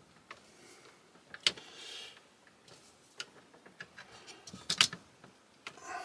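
Screwdriver clicking and knocking against a terminal screw and lug in a metal combiner box while a wire is clamped down. The clicks are scattered, with the sharpest ones about a second and a half in and again near five seconds.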